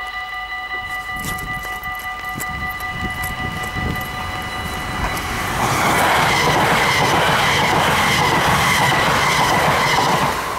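Level-crossing warning bells ringing steadily. About five seconds in, an NS Sprinter Lighttrain (SLT) electric multiple unit passes close by, and the rush of its wheels on the rails drowns out the bells. The train noise drops away near the end.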